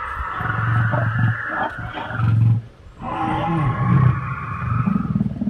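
Recorded dinosaur roar sound effect played through loudspeakers for an animatronic dinosaur: two long, loud roars, with a short break a bit under three seconds in.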